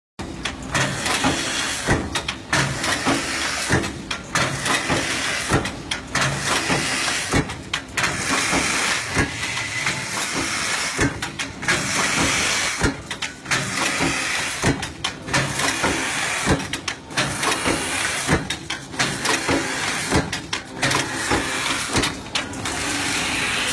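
CNC pipe hole-punching press stamping holes into steel pipe: repeated sharp punch strikes at an irregular pace of about one to two a second, over a steady hiss and machine noise.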